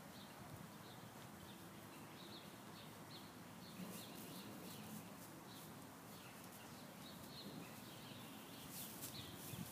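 Faint bird chirps repeating over quiet outdoor ambience, with a few soft rustles about four seconds in and near the end.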